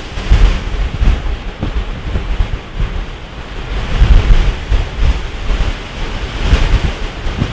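Strong gusty wind buffeting the microphone: a loud, rough low rumble that swells in gusts, peaking about half a second in, around four seconds in and again near the end.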